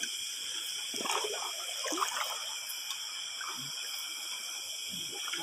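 Shallow water splashing and sloshing in short irregular bursts as someone wades, over a steady high-pitched chorus of night insects.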